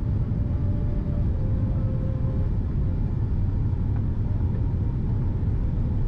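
Steady low rumble of a Boeing 787-10's engines and rushing air, heard inside the cabin on final approach low over the airport, with a faint thin whine over it.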